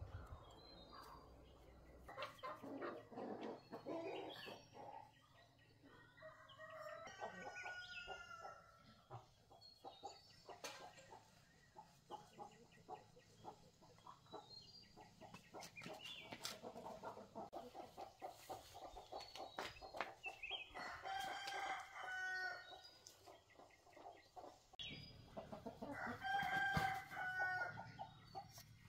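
A rooster crowing twice in the second half, each crow about two seconds long, the second the louder. Light clicks and taps of small metal compressor parts being handled come in between.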